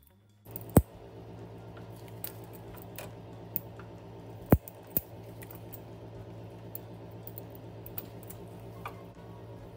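Metal snips cutting and snapping through the crimped ferrule on a transmission cooler line end. The sharp metal clicks come at uneven intervals, with two loud snaps about a second in and about four and a half seconds in, over a steady hum.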